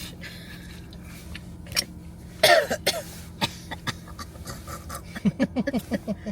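A person coughing about two and a half seconds in, then a quick run of short laughs near the end.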